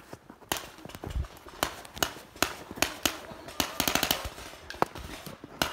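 Paintball markers firing: single pops at irregular intervals about every half second, with a quick string of several shots around four seconds in.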